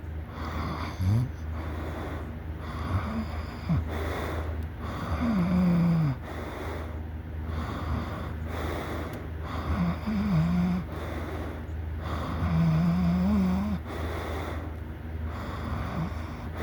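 A person snoring loudly in sleep, with a noisy breath every couple of seconds and a pitched snore tone on several of them. A steady low hum runs underneath.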